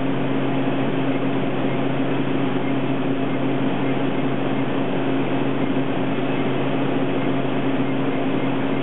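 Steady whir of running platemaking equipment under a constant low electrical hum, unchanging throughout.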